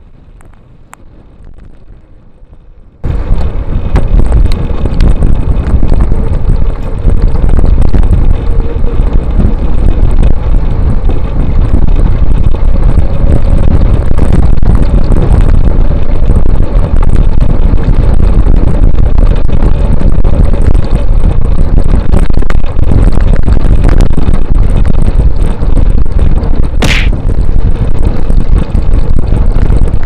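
Heavy wind buffeting on the microphone of a bicycle-ridden action camera at speed. It starts abruptly about three seconds in and stays loud and rumbling, with a short high squeak near the end.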